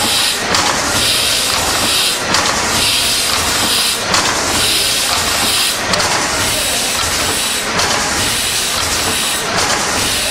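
Steam engine running with a loud hiss of steam that swells and fades in a slow, regular cycle just under two seconds long, with each stroke.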